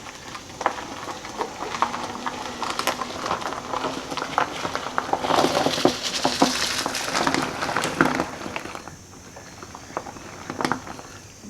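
Ratchet strap being worked to pull a car off a trailer: irregular clicks and rattles, thickening into a denser, louder patch of rattling around the middle, then easing off.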